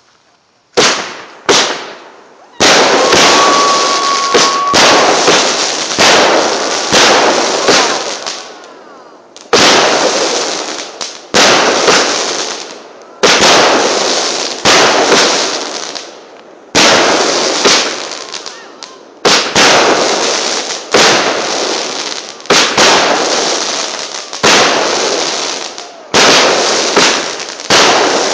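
A multi-shot consumer firework cake firing shot after shot, a sharp bang roughly every second, each trailing off as it fades. A brief whistle sounds a few seconds in.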